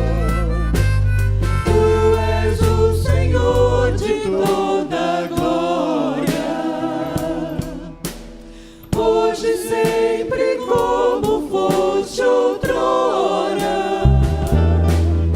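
Gospel worship song: voices singing with vibrato over a band with drums. The deep bass drops out for most of the middle, with a brief quieter moment just past halfway, and comes back near the end.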